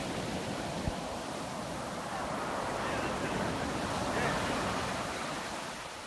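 Small waves breaking and washing up a sandy beach. The surf's hiss swells to a peak about four seconds in, then eases off near the end as the water runs back.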